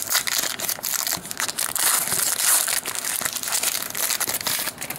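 Hockey trading card pack wrapper being torn open and crinkled by hand, a steady crackling with many sharp crackles that stops at the end.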